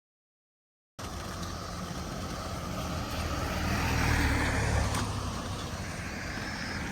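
A car passing by on a road: tyre and engine noise that swells to its loudest about four seconds in and then fades.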